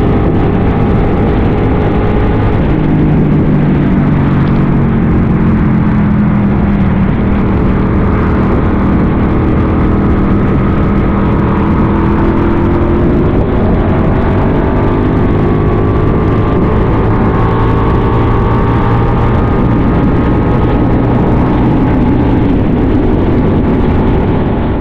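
Kasinski Mirage 250 motorcycle's V-twin engine running under way, its pitch slowly falling and then rising again as the throttle is eased and reopened.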